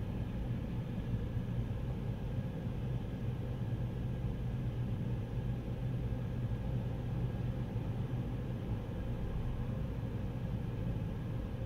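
Steady low rumble of car wash dryer blowers running behind the closed entry door, heard from inside a waiting car's cabin.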